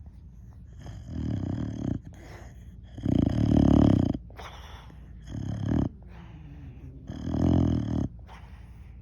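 A sleeping boxer dog snoring: four loud, rattling snores about two seconds apart, with quieter breaths between them.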